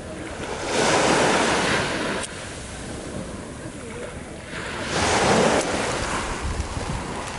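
Sea waves washing onto the beach, swelling loud about a second in and again around five seconds, with wind on the microphone.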